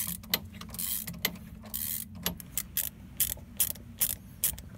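Irregular sharp metallic clicks and taps from a tool working the hose clamps on a sailboat's propeller shaft seal, over a steady low hum.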